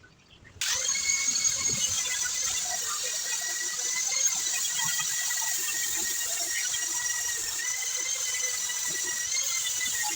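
A machine starts abruptly about half a second in and runs steadily with a high-pitched whine over a hiss.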